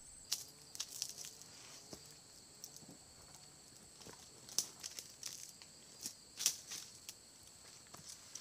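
Scattered sharp crackles and rustles of dry leaves and fronds, a handful of separate snaps with the loudest about four and a half and six and a half seconds in. Under them runs a steady, high-pitched insect drone.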